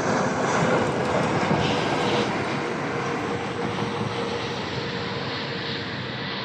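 Passenger airliner passing, its engine noise a dense steady rush with a faint whine, slowly fading as it moves away.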